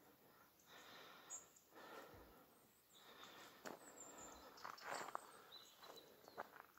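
Near silence: soft footsteps crunching on a stony trail about once a second, with a few faint, high bird chirps.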